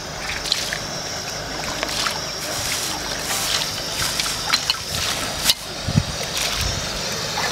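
Water splashing and dripping as cooked lobsters are rinsed by hand, scooped from a steel pot of water into a steel bowl: irregular sharp splashes over a steady hiss.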